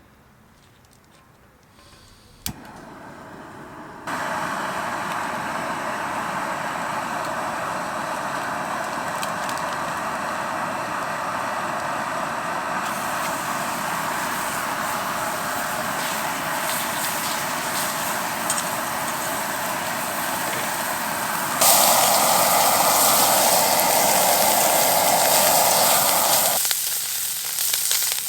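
A sharp click, then a portable gas burner hissing steadily as it burns. It turns to a louder sizzle, like food hitting a hot pan, about 22 s in, easing off near the end.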